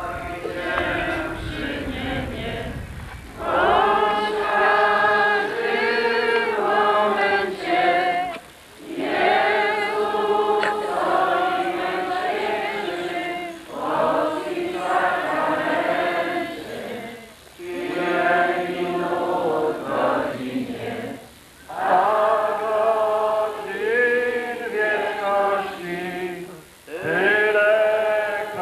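Many voices singing a church hymn together, in phrases of about four to five seconds with short breaks between them.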